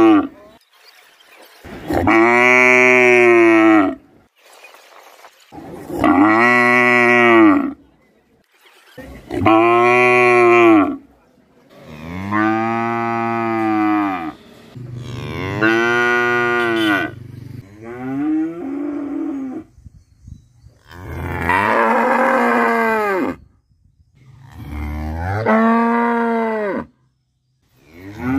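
A cow mooing loudly over and over: about nine long moos, each lasting a second and a half to two seconds, with a short pause between them. The later moos are more uneven in pitch.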